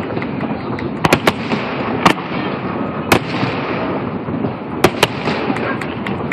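Aerial fireworks shells bursting during a display: about seven sharp bangs, some in quick pairs, over a steady din from the show.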